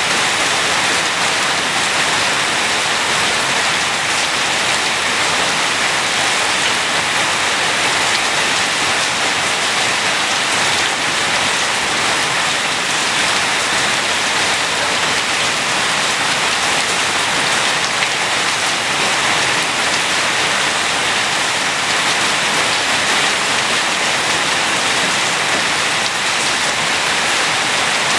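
Steady heavy rain falling on hard surfaces, an even hiss with no breaks or single loud events.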